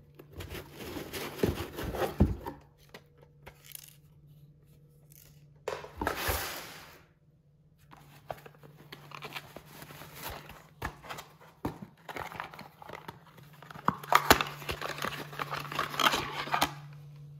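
Unboxing handling noise: plastic wrap crinkling and cardboard packaging rustling, with scattered light knocks and clicks as parts are lifted out and handled. The rustling comes in irregular bursts, with a short lull in the middle and busier handling near the end, over a faint steady low hum.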